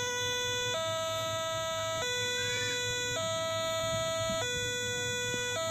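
Toy railway level crossing's electronic two-tone warning alarm, alternating steadily between a lower and a higher tone about every 1.2 seconds.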